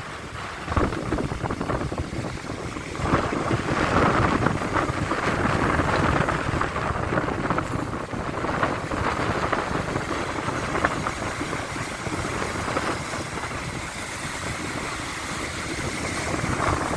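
Sea surf washing onto the shore in a steady rush that swells a second in and again about three seconds in, with wind buffeting the microphone.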